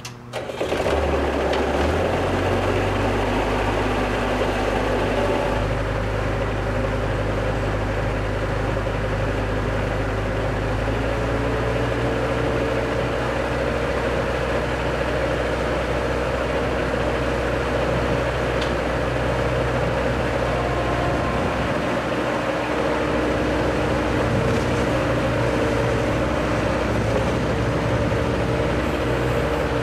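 Bobcat 763 skid-steer loader's engine running steadily, with the revs rising about two seconds in.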